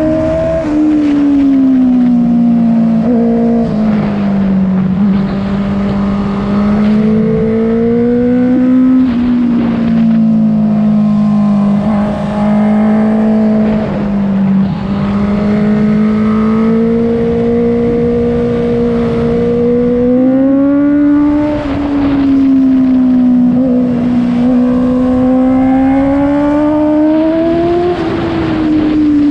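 Honda CBR650F's inline-four engine running through an Akrapovic full-system exhaust with no dB killer, held at steady high revs with its pitch sagging and climbing slowly several times as the throttle varies.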